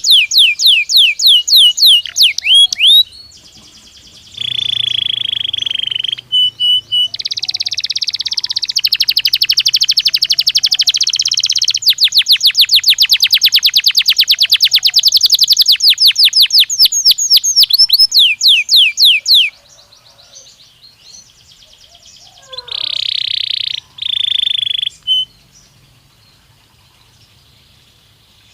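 Domestic canary singing: fast trills of repeated sweeping notes alternating with buzzy rolled notes, stopping about two-thirds of the way through, then two short buzzy notes after a pause.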